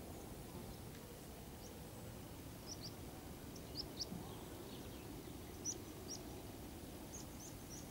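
Small birds chirping: short high calls, singly and in quick pairs, scattered throughout and coming more often near the end, over a steady low outdoor background noise.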